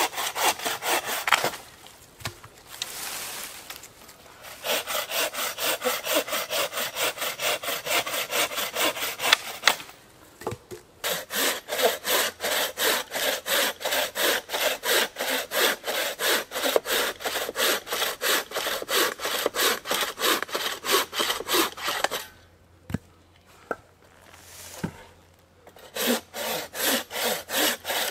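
Wooden-framed bow saw cutting dry birch logs for firewood in quick, even back-and-forth strokes, about three a second. The sawing stops briefly near the start, about ten seconds in, and for a few seconds late on.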